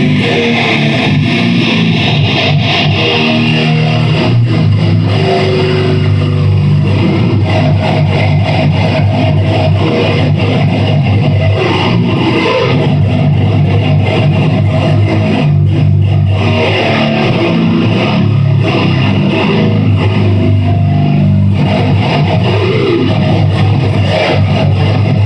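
Loud electric guitar played through a stage amplifier, running riffs and sustained notes for an instrument sound check.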